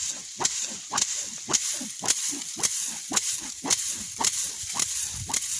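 Dried bean plants being threshed with a wooden beating stick: a sharp whack about twice a second, over a steady high hiss.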